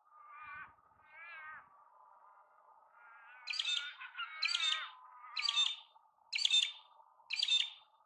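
Wedge-tailed eaglets calling: two short, whining calls, then about halfway through five louder, sharper calls about a second apart.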